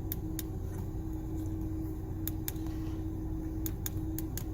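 Steady low hum inside a pickup truck's cab, broken by several pairs of short, light clicks: buttons being pressed on a COBB Accessport handheld tuner while paging through its menus.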